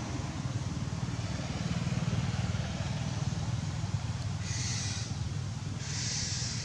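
Steady low rumble of a road vehicle's engine running nearby, with two short hissing bursts about four and a half and six seconds in.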